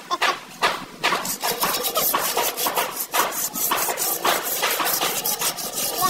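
Hand sanding or scraping a plastered wall with a flat pad: quick rasping strokes, several a second, kept up steadily.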